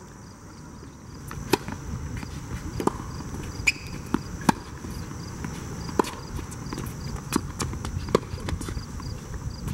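Tennis rally on a hard court: a string of sharp knocks from rackets striking the ball and the ball bouncing, roughly one a second, starting about a second and a half in.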